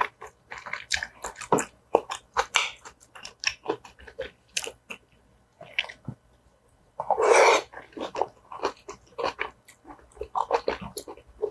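Close-miked chewing and wet mouth sounds of eating tteokbokki: chewy rice cakes and vegetables in sauce, with many short clicks and one loud slurp about seven seconds in.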